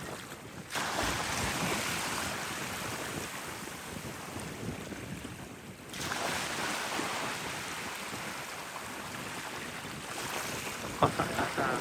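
Strong wind buffeting the microphone over the rush of sea surf breaking on the shore, with gusts swelling about a second in and again about six seconds in. A few short sharp sounds near the end.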